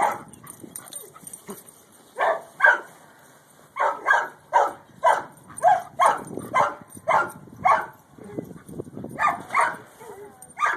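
Giant Schnauzer barking: a long run of short, sharp barks, mostly about two a second, with a brief pause before a last few near the end.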